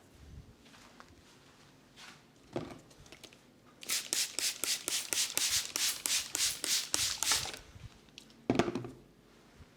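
Head-massage percussion: rapid rhythmic tapping of hands on the head, about five or six strokes a second for some three and a half seconds, then a single dull thump near the end.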